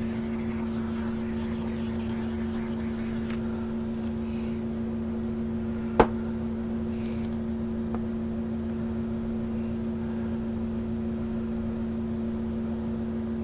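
Steady mechanical hum holding two low tones over a faint rumble, with one sharp click about six seconds in.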